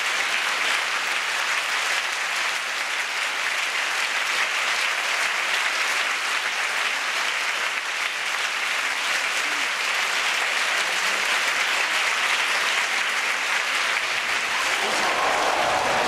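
Theatre audience applauding steadily. Near the end, music starts to come in under the clapping.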